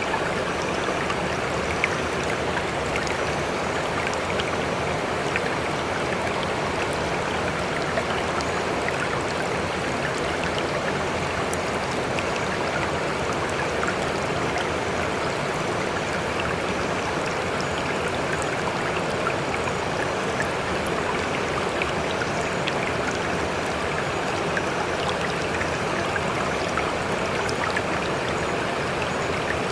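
Steady rushing of running water, an even hiss with faint scattered ticks and drips.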